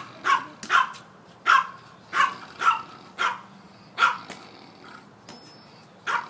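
A dog barking repeatedly: about ten short, sharp barks at an uneven pace, one or two a second.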